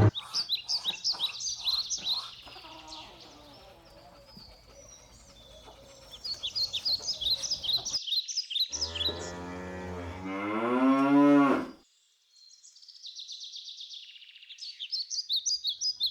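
Small birds chirping in quick runs of high notes, then one long cow moo about nine seconds in, rising in pitch before it cuts off; the chirping returns near the end.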